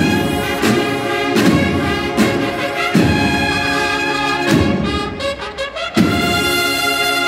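A Spanish bugle and drum band (corneta and drum band) playing a processional march. The massed cornets hold sustained chords, punctuated by heavy drum strokes, with a quick run of repeated notes about two-thirds of the way through.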